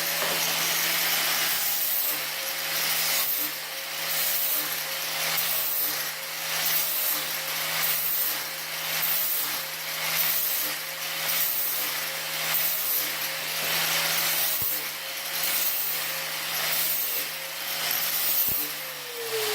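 A 4.5-inch angle grinder with a 60-grit flap wheel grinding a steel bolt-cutter handle: a steady motor whine under the abrasive rasp of the flap wheel on the metal, swelling and easing in a regular rhythm as the wheel is kept moving. Right at the end the grinder is switched off and its whine falls in pitch as it spins down.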